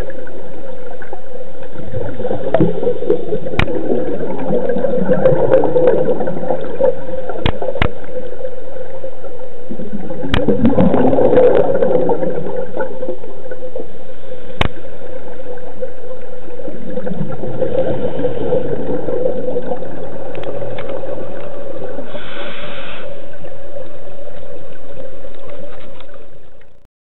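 Underwater recording from a scuba diver's camera: exhaled regulator bubbles gurgle up in swells about every six or seven seconds over a steady hum, with scattered sharp clicks. The sound fades out near the end.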